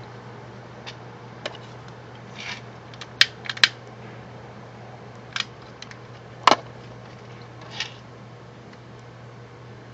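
A scatter of short sharp clicks and small knocks from objects being handled, about eight in all, the loudest about six and a half seconds in, over a steady low hum.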